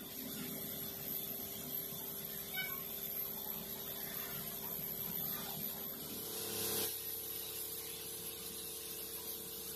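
Compressed-air spray gun hissing as it sprays paint, over a steady low hum. A stronger burst of spray comes about six and a half seconds in.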